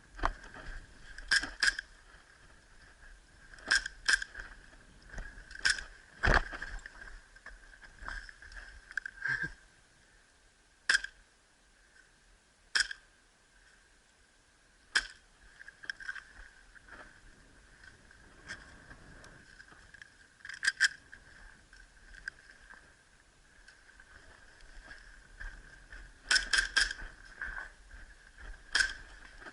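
Airsoft pistol shots: sharp cracks fired singly and in quick pairs, a dozen or more spread through, with a rapid cluster near the end, over a steady high-pitched hum.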